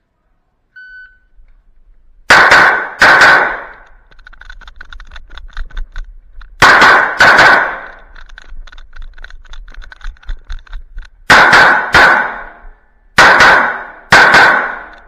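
Shot timer's start beep, then a CZ P-10 C pistol firing four pairs of shots a few seconds apart, with small clicks between the pairs.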